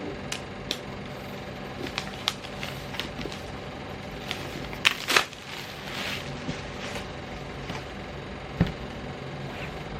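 Packaging being handled by hand: scattered light clicks and rustles, with a couple of sharper ones about five seconds in, over a steady low hum.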